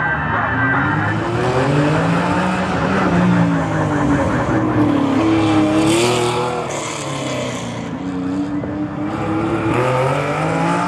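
Historic Porsche 911 rally car's flat-six engine revving up and down several times as it slides round a tight hairpin. About six seconds in there is a burst of tyre noise, and then the engine gets quieter as the car pulls away.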